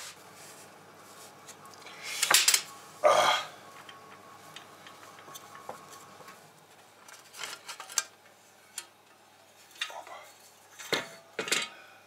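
Metal bread-machine pan knocking and clattering against a wooden cutting board as the baked loaf is turned out of it. The loudest knocks come about two to three seconds in, followed by lighter clinks and taps.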